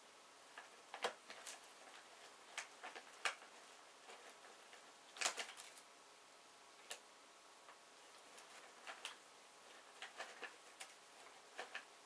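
Faint, irregular crinkles and crackles of a plastic shopping bag and its packaging as a cat rummages in it, with the loudest cluster about five seconds in.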